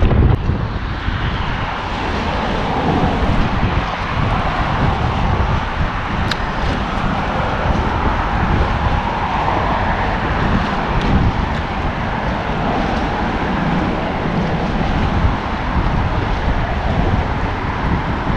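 Steady wind blowing across the microphone, a constant rushing noise with a low rumble, and a single faint click about six seconds in.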